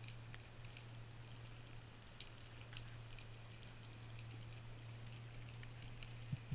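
Faint underwater ambience heard through an action-camera housing: scattered light crackling clicks over a steady low hum, with one sharper knock near the end.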